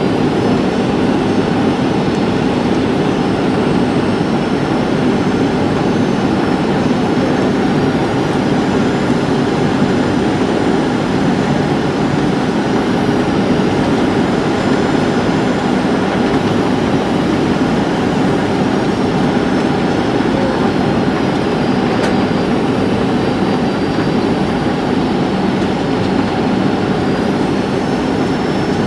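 Steady cabin noise of a Boeing 737-700 in flight: the drone of its CFM56-7B turbofans and the rush of air over the fuselage, with a faint high whine that drifts slightly in pitch. The aircraft is low on its descent to land.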